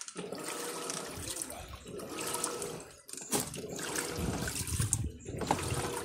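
Electrolux LT15F 15 kg top-loading washing machine agitating a load: water sloshing and churning in the tub in surges, with short breaks between strokes.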